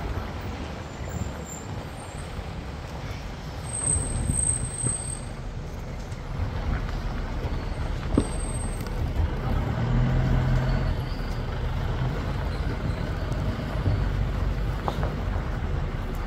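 Open safari jeep's engine running with a steady low rumble as the vehicle moves and then stands. There is a single sharp knock about eight seconds in.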